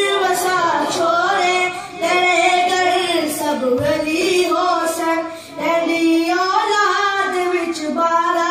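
A boy's voice reciting devotional poetry in a melodic, sung style into a microphone. Long held, wavering notes come in phrases, with brief breaks for breath between them.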